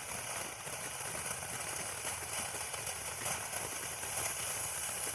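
Cannon Golden Flowers box fountain firework burning: a steady rushing hiss of spraying sparks.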